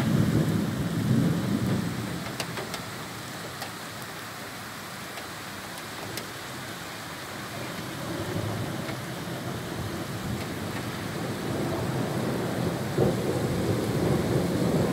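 Heavy rain pouring steadily in a thunderstorm. Low rumbles of thunder swell near the start and build again over the second half, and a few sharp ticks of drops come in the first half.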